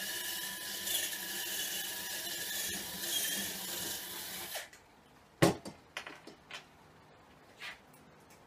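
Handheld power drill running steadily for about four and a half seconds, boring a rivet hole through the road case's corner. It stops, followed by one sharp knock and a few light clicks.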